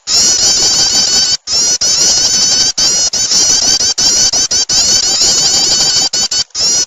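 Prinia (prenjak) calling: a dense, fast, unbroken run of high chirping notes, layered and repeating, cut by two brief gaps about a second and a half in and near the end. A looped lure recording for drawing small birds in.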